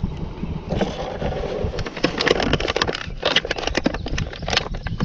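Irregular clicks and rustling from hands handling fishing tackle, the hook and line, in a boat.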